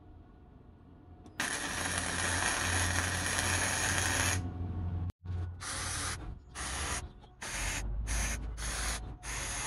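Gasless flux-core MIG welding arc, tack welding steel: one weld of about three seconds starting a little over a second in, then a run of about six short tack bursts, each around half a second long.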